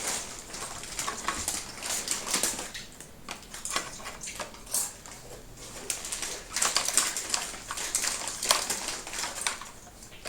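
Irregular plastic clicks and knocks as the vacuum cleaner's parts are handled, opened, closed and snapped together. The motor is not running.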